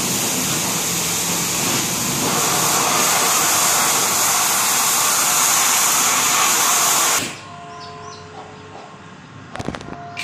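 Loud, steady hissing noise that cuts off suddenly about seven seconds in. It gives way to a much quieter background with a few faint chirps and a quick run of clicks near the end.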